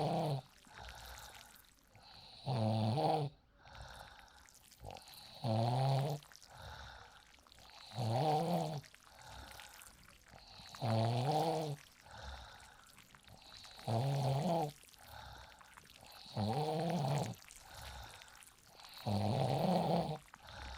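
A woman snoring in deep sleep: steady, regular snores on each in-breath, about one every two and a half to three seconds, eight in all.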